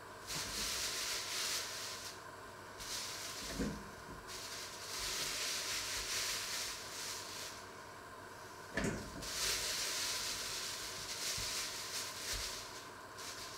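A thin plastic bag crinkling and rustling as it is handled, in four spells with short pauses between them. There are two dull knocks, one about three and a half seconds in and one about nine seconds in.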